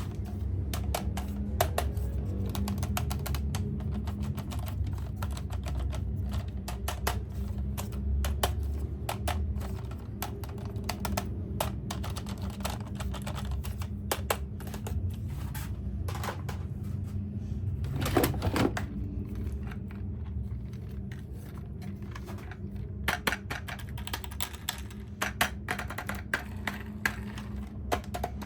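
Plastic toys and packaging being handled: many quick, irregular clicks and taps over a steady low hum, with a louder cluster of clicks past the middle.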